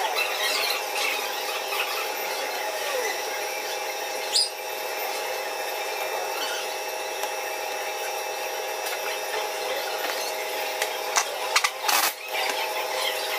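A steady whine of several held tones runs throughout, with a short rising squeak about four seconds in. Near the end a pneumatic impact wrench fires briefly on the clutch hub nut of a Honda motorcycle engine.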